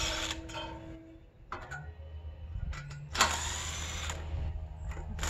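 Cordless drill driving a screw through a ladder guide rail into a log, in short runs: one ending just after the start and a longer, louder one about three seconds in.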